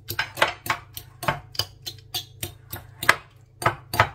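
A metal fork mashing boiled cauliflower in a bowl, its tines knocking against the bowl in a steady run of sharp clicks, about three a second.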